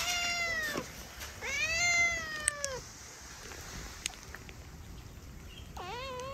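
Orange-and-white cat meowing three times: two long meows in the first three seconds, each falling in pitch at the end, then a shorter, lower, wavering meow near the end.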